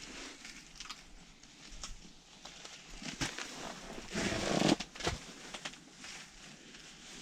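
Handling noises: scattered clicks and light knocks, with a louder rustle lasting about a second from about four seconds in.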